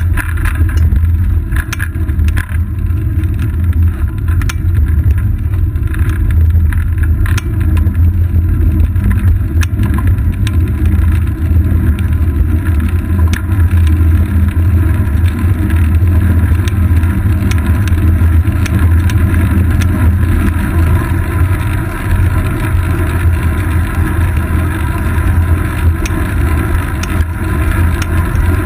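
Steady low rumble of wind and road vibration picked up by a seat-post-mounted camera on a moving bicycle, with frequent small clicks and rattles as the wheels run over bumps in the road surface.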